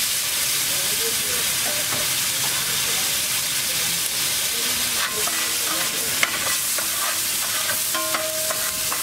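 Egg mixture with onion and tomato sizzling in oil on a hot flat griddle, a steady loud hiss. In the second half a metal spatula scrapes and clicks on the griddle as the mixture is gathered up.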